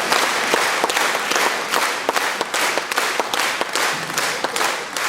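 Concert audience applauding, many hands clapping together, the applause slowly fading toward the end.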